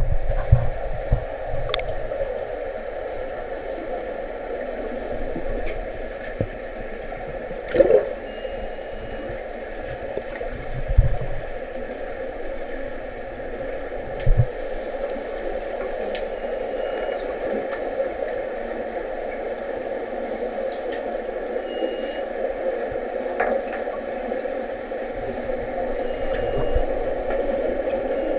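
Underwater swimming-pool sound as picked up by a submerged camera: a steady, muffled rushing hum, broken by a few dull thumps and, four times, a brief faint high tone.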